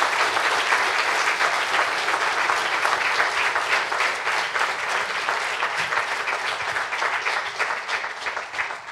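Audience applauding, a dense patter of many hands clapping that thins out and fades near the end.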